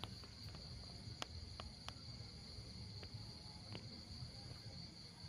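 Quiet, steady high trilling of night insects such as crickets, with a few faint scattered clicks.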